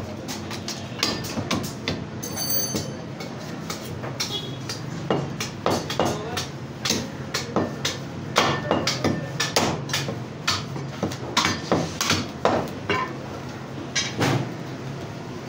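Heavy butcher's cleavers chopping goat meat and bone on thick wooden chopping blocks: irregular hard strikes, sometimes several a second, over a steady low hum. A brief high metallic ring sounds about two and a half seconds in.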